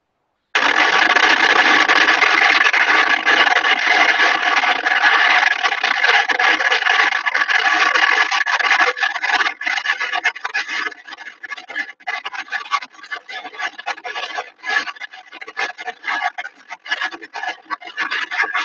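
Wind rushing through an open car window at speed, heard inside the cabin. A loud steady rush starts about half a second in and turns choppy and broken after about nine seconds.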